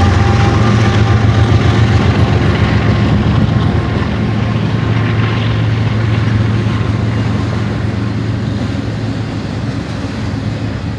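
BNSF ES44C4 diesel-electric locomotives working as mid-train helpers pass close by with a steady low engine drone. The drone eases off as they move away, and double-stack intermodal well cars roll past with continuous wheel-on-rail noise.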